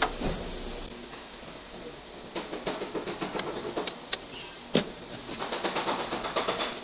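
Ratchet wrench clicking as a fastener is tightened, with scattered metallic knocks and one sharper knock about five seconds in. The clicking then settles into a quick, even run of several clicks a second.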